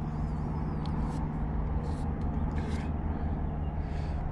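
Echo CS-2511T top-handle two-stroke chainsaw idling steadily, with a few short hissing scrapes.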